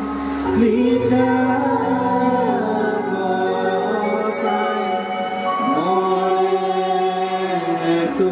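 Santal singers chanting a slow singrai song, long held notes gliding from one pitch to the next over a steady low drone.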